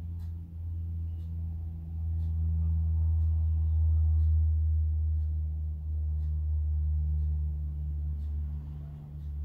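A low, steady droning hum with a few held tones, growing louder about two seconds in, with faint crinkles of baking paper being handled.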